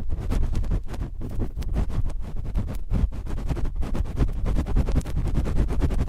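Cotton swabs scratching and rubbing directly on a microphone: a fast, unbroken run of scratchy strokes with a deep rumble from the contact.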